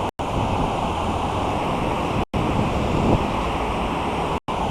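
Steady rushing wind noise on the microphone, cutting out completely for an instant twice.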